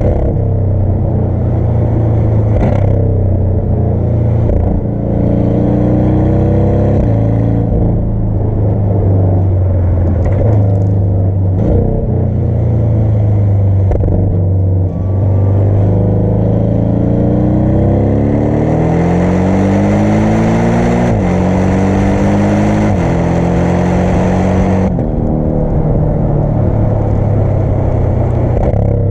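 Sports car engine accelerating hard, its pitch climbing and then dropping sharply at each upshift, several times over; it is loudest in the later run.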